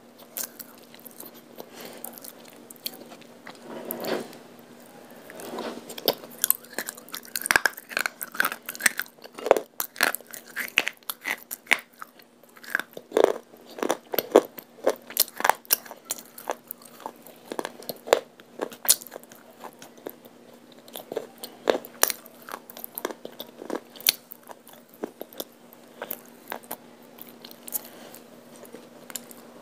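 Close-up biting and chewing of dry white clay chunks dipped in wet multani mitti (fuller's earth) paste: many sharp crunches in quick succession, thickest in the middle. A faint steady hum runs underneath.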